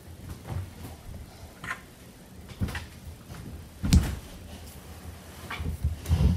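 Small plastic toy parts and packaging handled on a hard tabletop: scattered light clicks and taps, the sharpest about four seconds in.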